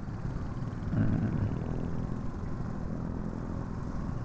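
Honda Supra GTR motorcycle engine running as it is ridden, with wind and road noise; the engine gets louder about a second in.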